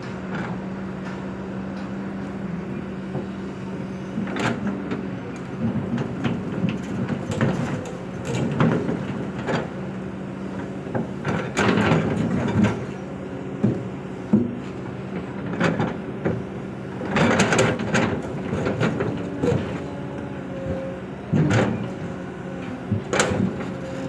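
Kobelco SK200 hydraulic excavator's diesel engine running steadily, with irregular clanks and thuds as the bucket works and drops its load into a dump truck's bed.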